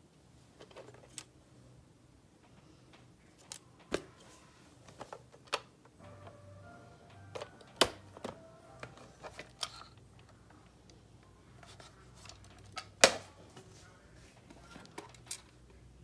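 Scattered sharp clicks and knocks of hard plastic fire alarm horn-strobes being touched and picked up, a dozen or so, with the loudest knock about three seconds before the end.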